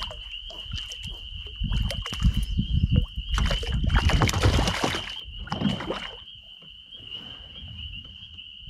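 A hooked brook trout splashing and thrashing at the water's surface beside a boat: a long burst of splashing about three and a half seconds in and a shorter one near six seconds, with low thumps just before.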